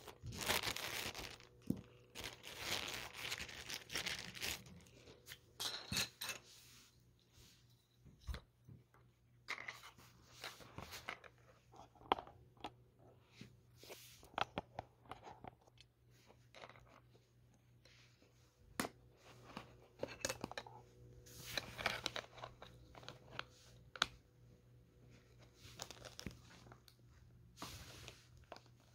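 Hard plastic pieces of a Schleich Farm World toy chicken coop being handled and fitted together: scattered small clicks and knocks, with crinkling rustles of plastic packaging.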